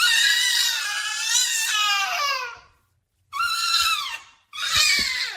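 High-pitched animal cries, three in a row: a long wavering one of about two and a half seconds that falls away at the end, then two shorter ones.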